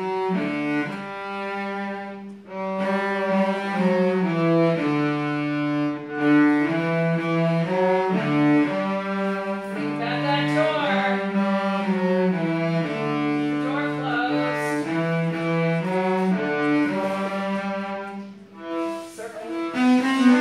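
Several cellos bowing a simple melody together, one held note after another with short breaks between phrases; the playing stops near the end.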